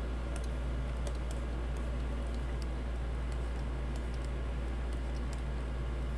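Scattered, irregular clicks of a computer keyboard, a key pressed every half second or so, over a steady low hum.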